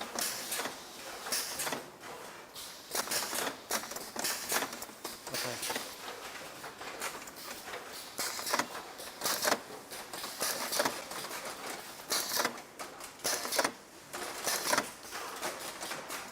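Irregular clicking and clattering of small parts being handled and fitted at a cable assembly station, over a steady factory background noise.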